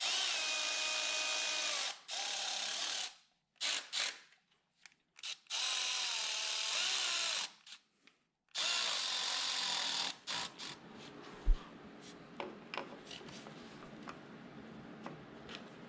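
Handheld electric power tool running in about six short bursts of one to two seconds, its motor whine shifting in pitch within some bursts. Afterwards come lighter clicks and handling noises, with one sharp click.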